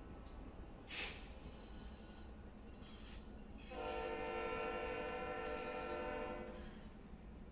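BNSF diesel freight locomotives rumbling past, with a short hiss about a second in and then one long blast of the locomotive air horn, about three seconds, starting about halfway through.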